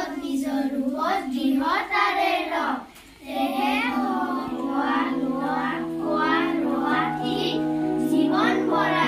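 A group of schoolchildren singing a song together in unison, with a short break between phrases about three seconds in. Steady held tones run underneath.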